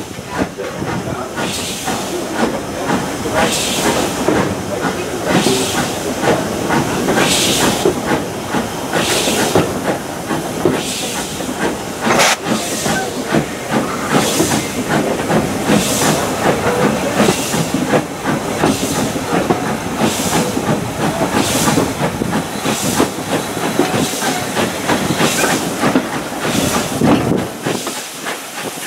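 Steam locomotive pulling away: regular chuffs of exhaust over the rumble of the train, the beats coming quicker as it gathers speed.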